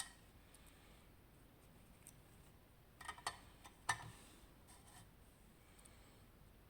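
A few faint, short clicks of small metal lock parts being handled, in a cluster about three to four seconds in, amid near silence; the parts are the internals (sidebar and disks) of a disassembled Abloy Sentry disc-detainer padlock.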